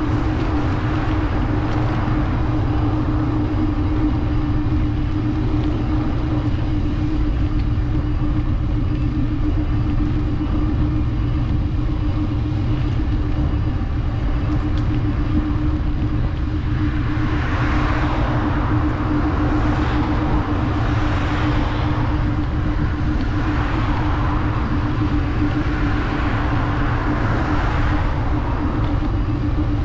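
City street traffic with a steady low rumble and hum. Several louder swells come in the second half as vehicles pass.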